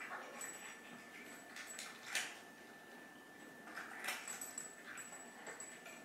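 Cats eating from bowls: irregular short crunches of chewing, a second or two apart.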